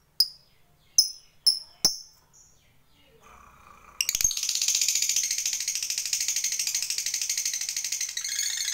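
Fischer's lovebird giving four short sharp chirps, then about four seconds in breaking into a long, fast, unbroken chattering trill, the 'ngekek panjang' that lovebird keepers prize.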